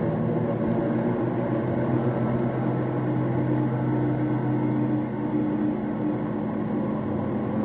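A steady low drone of several held tones over a noisy hum. The lowest tone drops out about five seconds in, while the others carry on.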